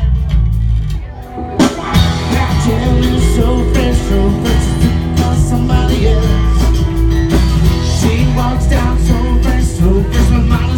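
Rock band playing live at full volume, bass-heavy, with a sharp hit about two seconds in after which the whole band plays on.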